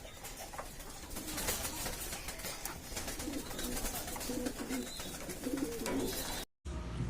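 Domestic pigeons cooing, a run of short low calls in the second half, over scattered clicks and rustling. The sound cuts out briefly near the end.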